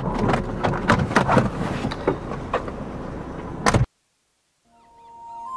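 Car keys jangling and clicking in a car cabin, a rapid irregular clatter that cuts off abruptly about four seconds in. Soft music fades in near the end.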